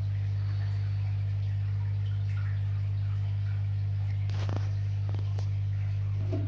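A steady low hum, with a couple of faint clicks about four and five seconds in.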